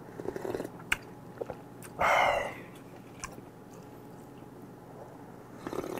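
A person slurping hot broth from a ladle, with one loud slurp about two seconds in and a few quieter mouth sounds and small clicks around it.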